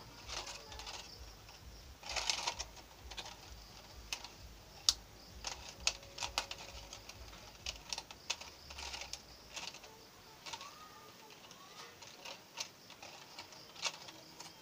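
A thin clear plastic bottle being cut into a spiral strip and handled: irregular sharp snips, clicks and crinkles of the plastic, with a denser crackling run about two seconds in.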